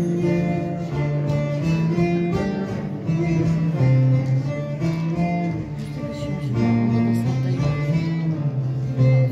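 Live folk ensemble of bağlamas (long-necked Turkish lutes) and acoustic guitar playing an instrumental melody with no singing.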